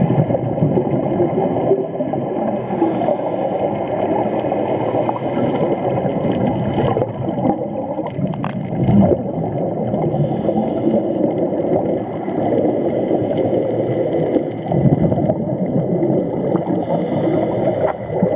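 Muffled underwater rush picked up through an underwater camera housing, with scuba divers' exhaled regulator bubbles gurgling in short bursts every few seconds.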